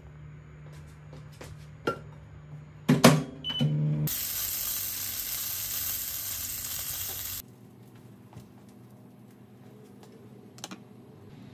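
A scored hot dog sausage sizzling in oil in a frying pan: a loud, even hiss that lasts about three seconds and cuts off suddenly. Just before it come a couple of sharp kitchen knocks and some light clicks of food being handled.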